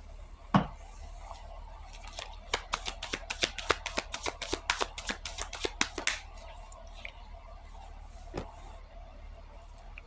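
A deck of cards being shuffled by hand: a single thump, then about four seconds of crisp rapid clicks, roughly six a second, and one soft knock near the end.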